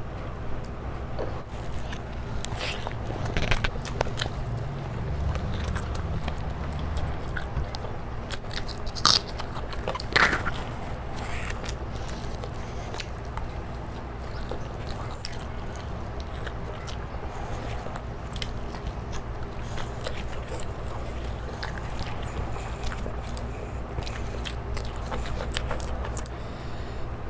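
Close-miked eating: biting and chewing rice and spicy chicken kosha, with many short wet mouth clicks throughout and a couple of louder ones about a third of the way in, over a steady low hum.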